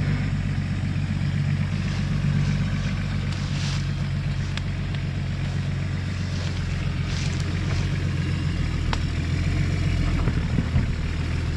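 Nissan Patrol GR off-roader's engine running at low, steady revs while it works through a rough off-road passage, with a few faint clicks and knocks.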